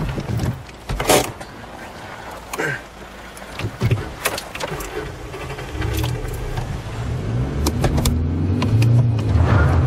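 Inside a moving car: a few sharp clicks and knocks, then the car's engine running with a low rumble that grows louder over the last few seconds.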